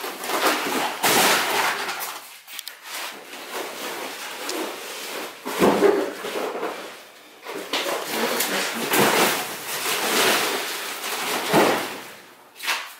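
Rustling, scraping and clattering of junk being shifted by hand, with a couple of sharp clunks, one about six seconds in and one near the end.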